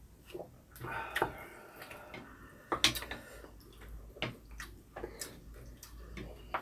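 Wooden spoons and chopsticks tapping and scraping against ceramic bowls of beef rib soup, a few sharp clicks with the loudest a little before three seconds in, along with soft sounds of soup being sipped from the spoon.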